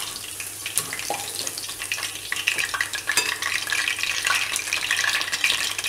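Battered cauliflower florets deep-frying in hot oil, a dense, steady crackling sizzle. The florets are golden brown and done.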